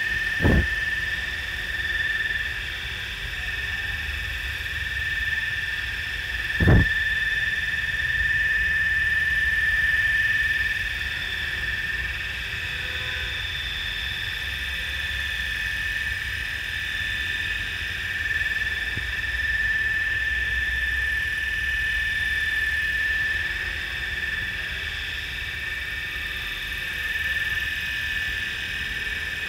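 700-size RC helicopter hovering just above the ground, its motor and rotor making a steady high-pitched whine. Two short low thumps break in, one about half a second in and one near seven seconds.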